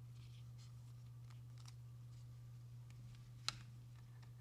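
Near silence: faint clicks and rustles of trading cards being handled, with one sharper click about three and a half seconds in, over a low steady hum.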